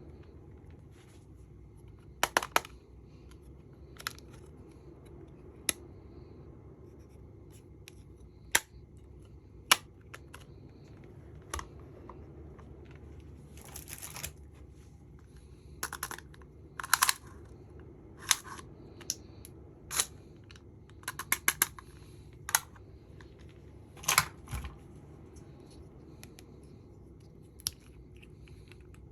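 Makeup kit packaging and cases being handled: scattered sharp clicks and taps at irregular intervals, with a few short rustling scrapes around the middle and again later on.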